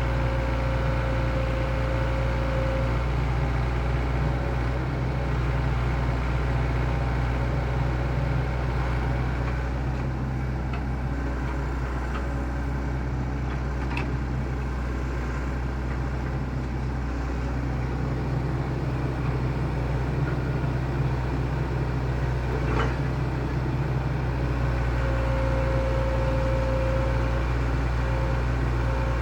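Excavator's diesel engine running steadily, with a higher whine that fades out in the first few seconds and returns near the end, and two sharp clicks in the middle.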